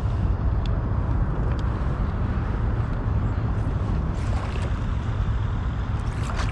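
Steady low rumbling noise of wind buffeting the microphone, with a few faint clicks.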